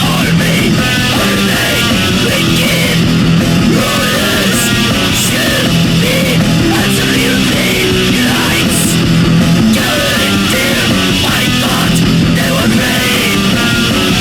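Loud, dense heavy metal recording: distorted guitars and drums, with shouted vocals over them.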